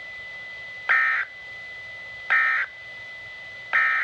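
Emergency Alert System digital data tones: three short buzzing bursts about a second and a half apart, each about a third of a second long, the End of Message header that closes the alert. A faint steady high tone runs underneath.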